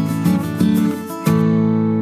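Background music on acoustic guitar: plucked and strummed notes, with a chord struck a little past halfway that rings on and slowly fades.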